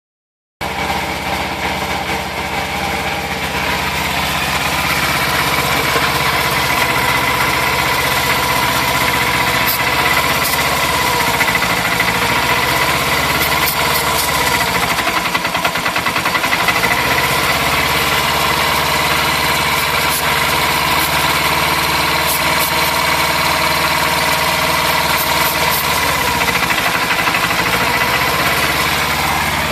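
Yamaha XS400 Seca parallel-twin engine idling warm at about 2000 rpm. The revs sag twice, about halfway through and near the end, as starter fluid is sprayed at the carb-side intake boots. The engine tries to die rather than idle up, which the owner takes as a sign of a vacuum leak at the boots.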